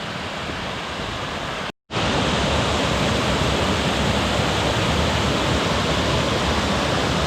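Waterfall rushing, a steady wash of water noise. It cuts out for a moment just under two seconds in and comes back louder.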